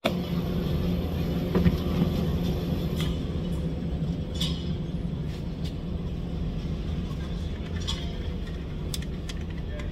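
Steady low rumble and hum of an indoor shooting range's ventilation, with a few light clicks as the AP5-P pistol is handled; no shot is fired.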